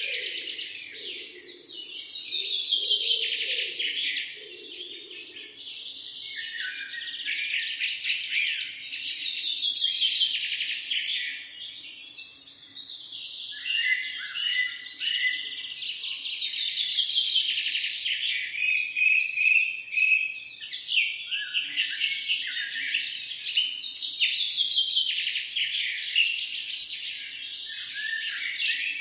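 Small songbirds singing and chirping in a dense, continuous chorus of rapid twittering phrases, swelling and easing every few seconds.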